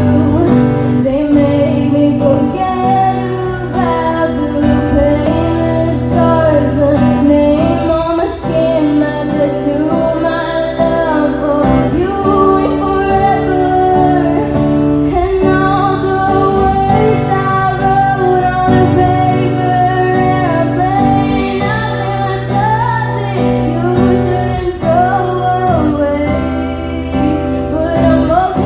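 A woman singing a slow original song live into a microphone, accompanying herself on guitar.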